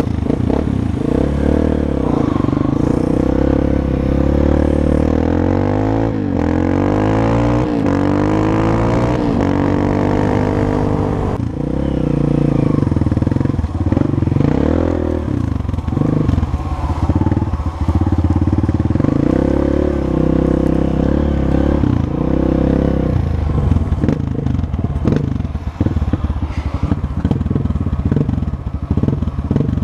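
Honda CRF dirt bike's single-cylinder four-stroke engine under way, revving up and falling back repeatedly as the rider works the throttle and shifts gears. Near the end the note turns choppy, with quick on-and-off throttle.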